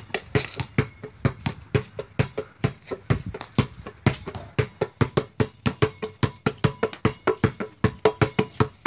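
A basketball dribbled fast on a concrete slab, a quick even run of sharp bounces about six a second, each with a short ring.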